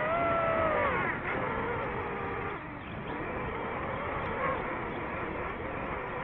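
DJI FPV drone's motors and propellers whining in flight over a steady hiss, the pitch falling about a second in and then holding lower and steady.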